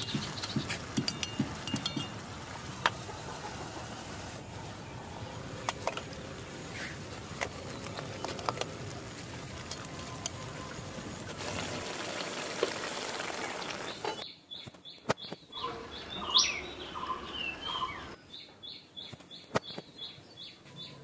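Metal spatula clicking and scraping against an aluminium pot as a thick curry is stirred, over a steady hiss. About fourteen seconds in this gives way to small birds chirping in quick, repeated short notes.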